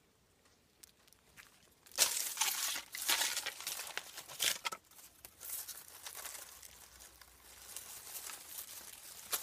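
Dry leaves and grass rustling and crackling as a hand pushes through the ground litter, starting suddenly about two seconds in, loudest for the next few seconds and then softer and more scattered.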